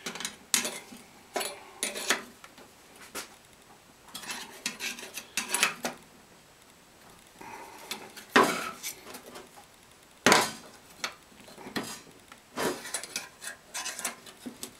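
Irregular metal clicks, knocks and short scrapes as a small metal fan impeller is handled and pushed down on its press-fit motor shaft, with two louder knocks past the middle. The fan had slid on the shaft and was scraping against its housing.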